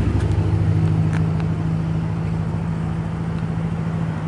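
A motor vehicle engine running steadily with a low hum, fading slightly and dropping away near the end.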